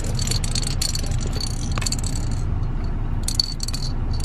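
Baby shaking a plastic toy rattle: quick clattering bursts through the first two and a half seconds and a short burst again a little past three seconds, over the steady low rumble of a car cabin.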